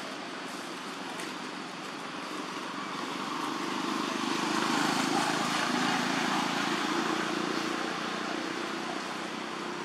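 A motor vehicle passing in the background: a steady engine-and-road noise that swells to its loudest about halfway through and then slowly fades.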